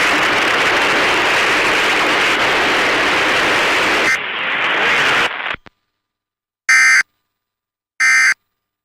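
Steady static hiss of the alert broadcast, which cuts off about five seconds in. After a short pause come two brief, identical Emergency Alert System end-of-message data bursts, about a second apart, which mark the end of the alert.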